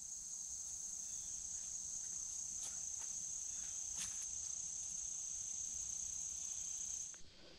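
Steady high-pitched insect trilling that cuts off suddenly about seven seconds in, with a couple of faint clicks.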